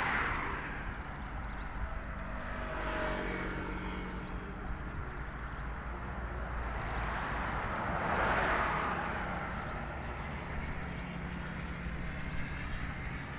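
Vehicles passing on a nearby road. Their noise swells and fades about three times, loudest a little past the middle, over a steady low rumble.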